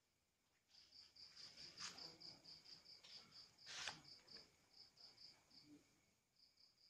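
Faint cricket chirping: a run of short high chirps, about four to five a second, pausing briefly now and then. Two sharp knocks, about two and four seconds in, are the loudest sounds.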